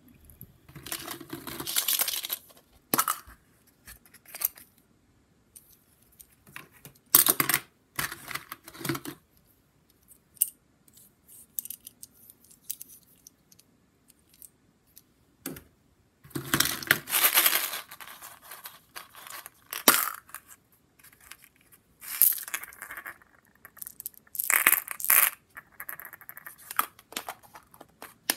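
Hard plastic surprise eggs and small toys being handled and opened over a plastic bucket: irregular clicks, snaps and rattling clatter, in bursts with short pauses.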